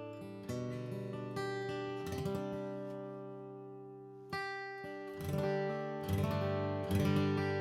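Gibson Hummingbird Vintage short-scale acoustic guitar, strung with Elixir 80/20 bronze light strings, played with a Blue Chip TD35 pick. Chords are strummed and picked about once a second, each left ringing with long sustain, and there is a longer ring-out in the middle.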